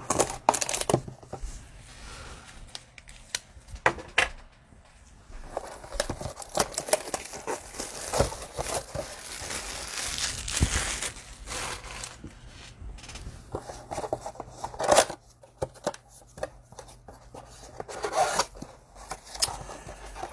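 A trading-card blaster box being unwrapped and opened by hand: plastic wrap and foil packs being torn and crinkled, in a string of sharp tears and rustles.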